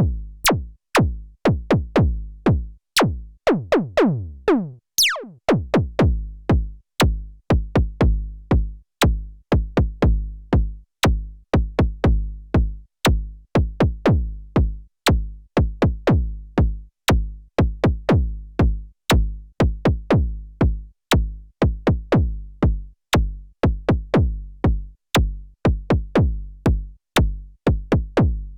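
KORG Volca Kick analog kick synthesizer playing a sequenced pattern of punchy kick and deep bass notes, each with a sharp click at the start. About four seconds in, a pitch sweep falls from high to low, and the bass drops out briefly before the pattern resumes.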